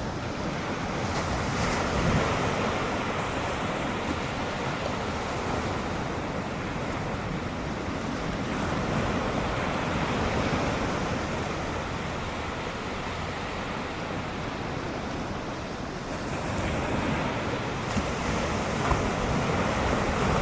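Ocean surf breaking and washing on the beach, with wind on the microphone. The wash swells about two seconds in, and again for the last few seconds.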